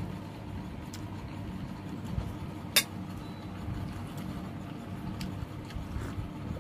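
A single sharp clink of tableware about three seconds in, over a steady low hum.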